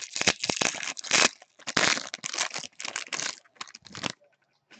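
Foil wrapper of a 2016 Topps Series 1 jumbo baseball card pack crinkling and rustling as hands work it open and off the cards, in a run of quick bursts that stops about four seconds in.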